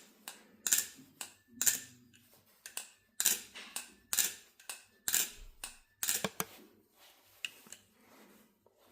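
XDYY Kraken V3 steel balisong being flipped: its handles clack against each other and the blade in a run of sharp metallic clicks, one or two a second.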